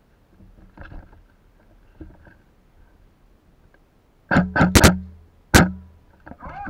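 Airsoft rifle shots: a quick run of about four sharp cracks about four seconds in, then a single crack about half a second later.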